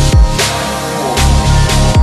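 Electronic dance music with heavy bass and falling bass drops in a dubstep style, without vocals.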